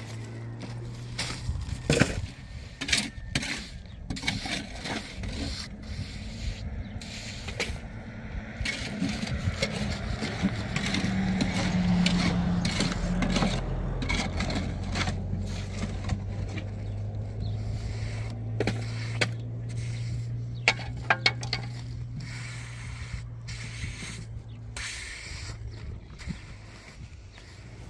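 Scraping and knocking of hand concrete work: a bucket set down, cement mix dumped onto the roof slab and spread and smoothed by hand, in many short scrapes and knocks. A steady low hum runs underneath.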